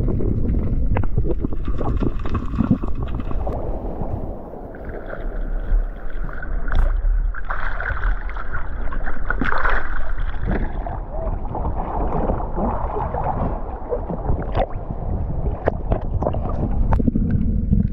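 Sea water sloshing and splashing around a camera held at the surface, with low rumbling wash and scattered small knocks as the lens dips in and out of the water.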